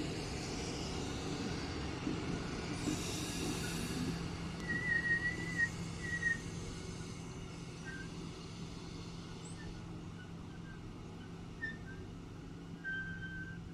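Caledonian Sleeper Mark 5 coaches rolling slowly past on the rails. Thin high wheel squeals come about five seconds in and again briefly near the end, over a steady low hum.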